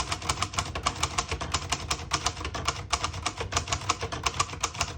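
1960 Hermes Rocket manual portable typewriter being typed on quickly: a steady run of sharp key and typebar strikes, several a second.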